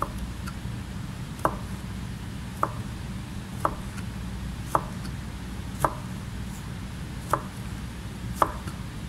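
Chef's knife slicing a carrot into julienne strips on a plastic cutting board: about eight sharp knocks of the blade meeting the board, slow and even at roughly one a second.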